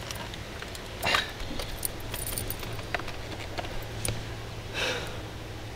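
Small flathead screwdriver scraping and clicking against the airbag retaining clip behind a Holden Commodore steering wheel: scattered faint metal clicks, with two short rasping scrapes, one about a second in and one near the end. The clip is stubborn and has not yet released.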